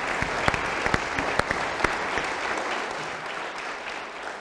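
Audience applause: many hands clapping together, fading toward the end.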